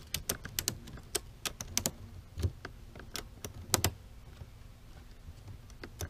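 Ratchet tie-down strap being cranked tight around a beehive: a run of sharp, uneven clicks, often in quick pairs, that stops about four seconds in, with one last click near the end.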